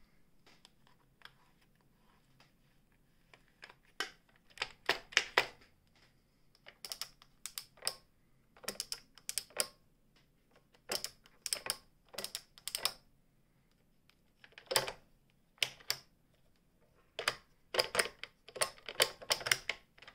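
Clusters of sharp clicks from the dials and controls of a New Home Janome 641 sewing machine being turned by hand, with its motor not running. The clicking starts about four seconds in and comes in irregular bursts of a few clicks each.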